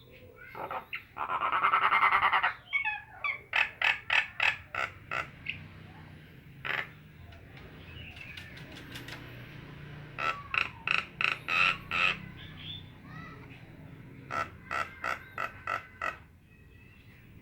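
Nias hill myna calling: a loud harsh rasping call about a second in, then three runs of short, sharp repeated notes, each run lasting a second or two.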